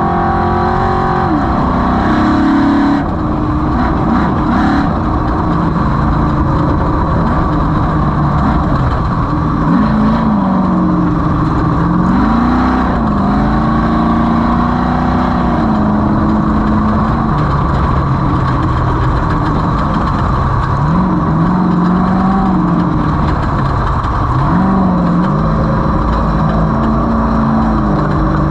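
Off-road race vehicle's engine running hard, its pitch rising and falling over and over as the throttle and speed change, over constant rough driving noise.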